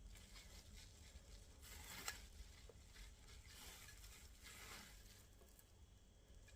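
Near silence, with faint handling noises: two soft swishes, one about two seconds in ending in a small click, and another about four seconds in, over a low background hum.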